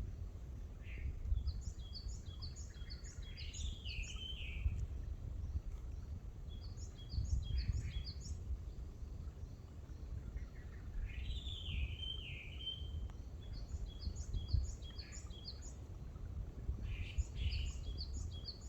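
Wild birds singing: several bursts of quick, high, repeated chirps, and twice a lower warbling phrase that wavers up and down, over a steady low rumble.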